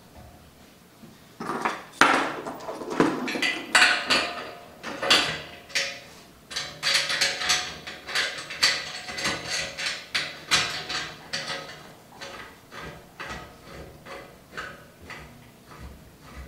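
Stainless steel valve and fittings clinking and clanking against each other and the tank as they are handled and fitted to the bottom port of a stainless conical fermenter. It is a quick, uneven run of metallic clicks with a light ring. It starts about a second and a half in and thins to lighter taps in the second half.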